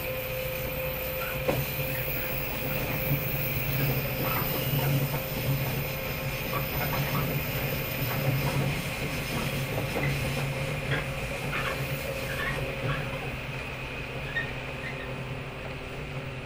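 Onboard running sound of a JR 115 series electric multiple unit, heard from inside the motor car MoHa 115: a steady hum from the traction motors and gears, with scattered clicks from the wheels and rails. A steady whine dies away about two-thirds of the way through, and the sound grows a little quieter near the end.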